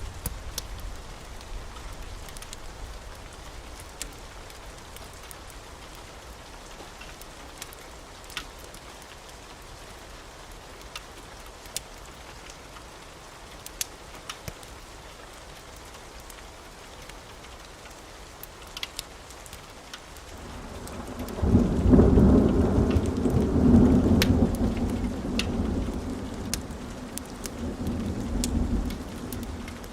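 Steady rain with scattered sharp ticks, then about two-thirds of the way through a roll of thunder builds quickly to a loud peak and rumbles on, slowly fading, until near the end.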